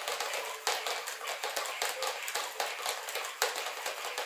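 Motorised Fisher-Price Master Moves Mickey Mouse dancing doll clattering as it moves on a wooden floor: a rapid, irregular run of taps and clicks, a few of them sharper than the rest.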